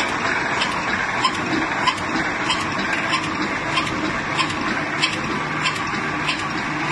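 Fully automatic welded wire mesh machine running: a steady mechanical clatter with a sharp click repeating about every two-thirds of a second.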